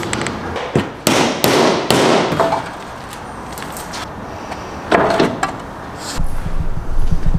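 Aluminium decking board being handled and set into place: scrapes and knocks, loudest in a cluster early on and again about five seconds in. A steady low beat of background music comes in near the end.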